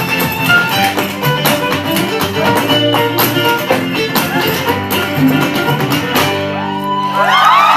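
Live acoustic band music with guitar and fiddle, with sharp percussive hits through the tune. The tune ends on a held chord about six seconds in, and the crowd breaks into cheering and whoops near the end.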